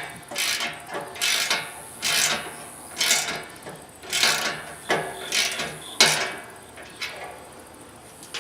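Ratchet wrench working bolts on a steel welding table, about one ratcheting stroke a second, stopping near the end.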